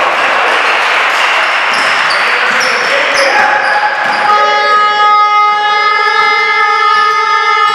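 Sneakers squeaking on the hardwood court over general gym noise, then a long, steady horn starts about four seconds in and holds.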